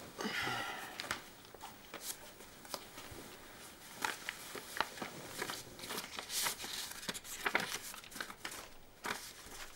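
Paper letters rustling and crinkling in a man's hands as he sorts through and unfolds them, in many short scattered bursts.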